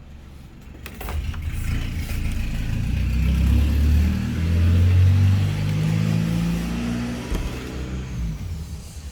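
A motor vehicle's engine passing close by, growing louder from about a second in, loudest around the middle, then fading away near the end.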